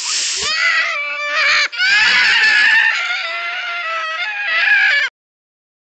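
A long, loud screaming cry, wavering in pitch, broken twice briefly and cut off suddenly about five seconds in.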